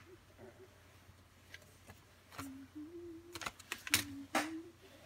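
Small handling sounds: a handful of sharp clicks and taps in the second half, as a plastic-and-foil decoder bag and turnout parts are set down on a cutting mat. Short stretches of a faint, wavering low hum lie underneath.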